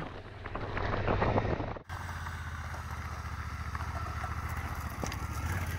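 Motorcycle engine running steadily while riding, with wind noise on the microphone. The sound cuts abruptly about two seconds in, then goes on as an even, steady engine hum.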